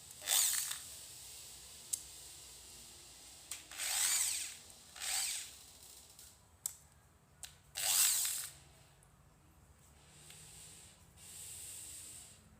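Electric drill being test-run in short trigger presses: four brief whirs, each spinning up and winding down, a fainter longer run near the end, with a few clicks in between.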